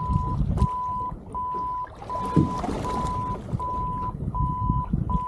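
Electronic alarm on a boat beeping evenly at one pitch, about four beeps every three seconds, over a steady low rumble.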